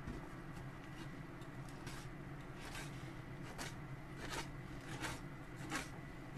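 Kitchen knife slicing salt-cured Pacific saury fillets into strips on a wooden cutting board: about six short, soft cutting strokes of the blade through the fish and onto the board, mostly from about two seconds in.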